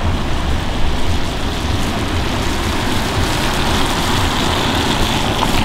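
Steady rain falling, with a car driving slowly over wet tarmac, its engine running, and a deep rumble underneath.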